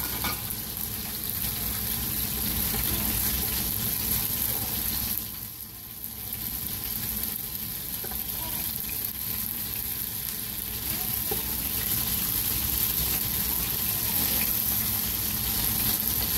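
Breadcrumbed Breaksea cod and King George whiting fillets sizzling steadily in hot oil in a frying pan, with fried rice frying and being stirred in a second pan. The sizzle dips briefly about five seconds in.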